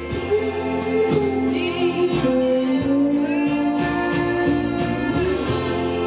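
A full band playing with singing: sung lines over drums, bass and guitar.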